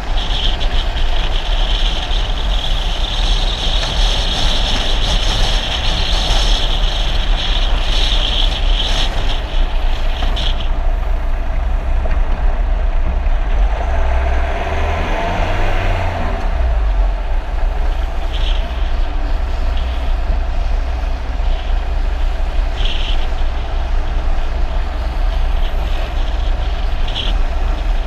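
Steady low rumble of road and wind noise heard from the follow car rolling downhill at speed, with a high hiss for about the first ten seconds, a brief rise and fall in pitch about halfway, and a few short high-pitched bursts near the end.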